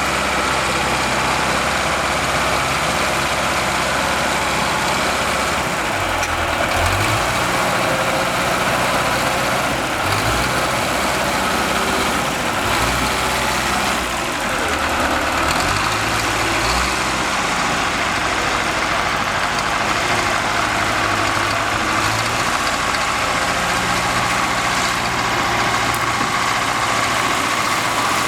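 Bulldozer's diesel engine running under load, its pitch rising and falling several times as the machine works, over a steady mechanical clatter.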